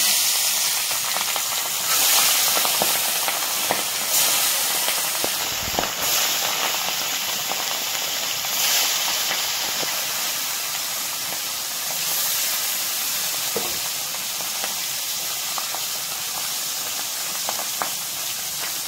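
Tengra catfish frying in hot oil in a karahi: a loud, steady sizzle with scattered pops. It swells every two seconds or so in the first ten seconds as more fish go into the oil.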